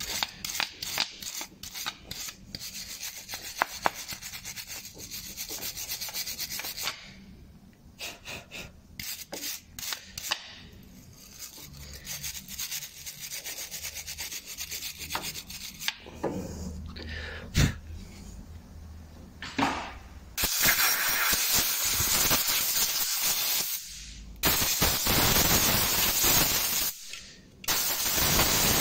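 Hand wire brush scrubbing rust and grime off a VW Caddy Mk1's front brake caliper carrier, in quick irregular scraping strokes. Near the end it turns into a louder, steadier scrubbing noise with one brief break.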